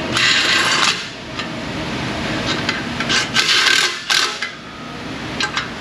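Mechanic's tools working on the new catalytic converter's exhaust bolts: three bursts of metallic rattling and scraping, one right at the start and two around three and four seconds in, with a few sharp knocks between them.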